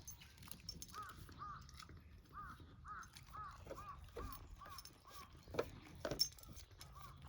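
An animal's short high calls, each rising and falling in pitch, repeated about twice a second, with two sharp clicks about five and six seconds in.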